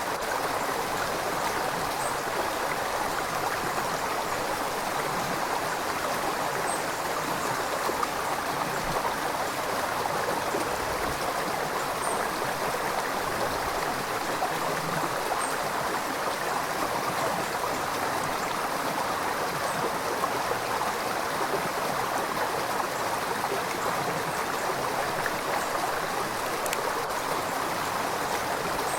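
River water flowing and rushing in a steady, even stream.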